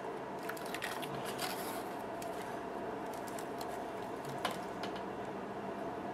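Handling of a glass nail polish bottle and its cardboard packaging: a few small clicks and rustles, then a single sharper click about four and a half seconds in, over a steady faint hum.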